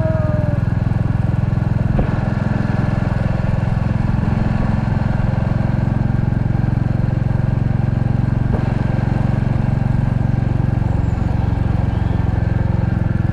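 Royal Enfield Classic 350's single-cylinder engine running steadily while riding at an even pace, its firing pulses heard close up.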